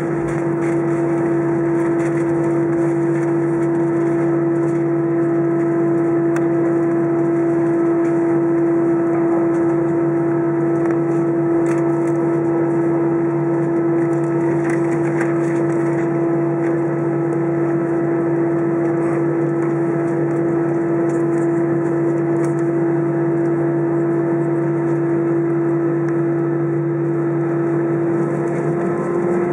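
Airbus A319's jet engines at taxi power, heard inside the cabin over the wing: a steady hum with one strong droning tone as the airliner taxis and lines up on the runway.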